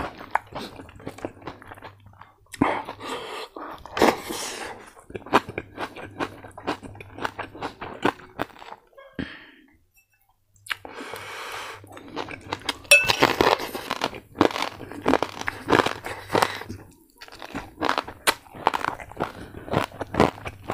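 Close-miked chewing of crispy fried pork, with loud crunches of the crackling in irregular clusters and a short pause about halfway through.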